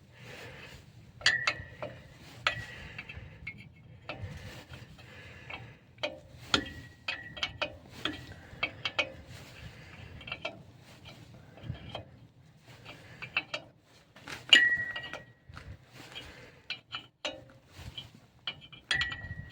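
A hammer knocking on steel parts of a KAMAZ truck's wheel brake: irregular metal knocks and clinks, several of them ringing briefly with a high metallic tone.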